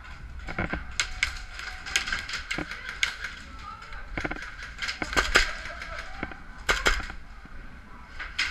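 Airsoft guns firing: a dozen or so sharp cracks at irregular intervals, some in quick pairs.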